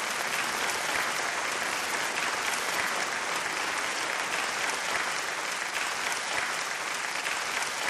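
Audience applauding steadily, a big round of applause.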